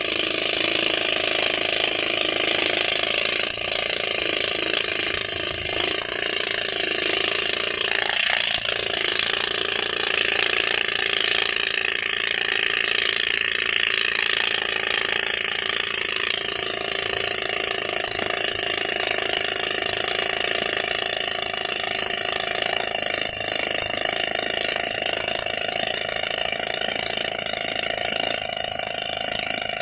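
Pneumatic rock drill hammering steadily into hard stone, a continuous rapid chatter of blows and air exhaust as it bores a blast hole.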